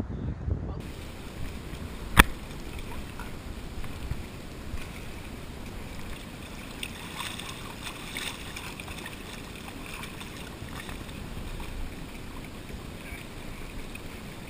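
Lakeshore ambience: water lapping around canoes at a rocky shore with light wind. One sharp click stands out about two seconds in.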